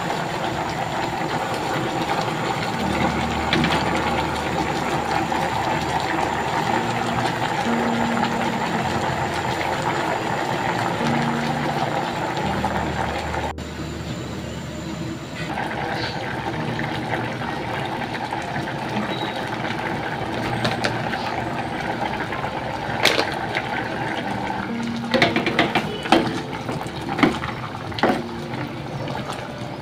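Saucepan of papaya in coconut milk boiling hard on a gas burner, a steady bubbling hiss. About halfway it drops abruptly to a quieter simmer under a glass lid, and near the end a wooden spoon knocks against the pan several times as it is stirred.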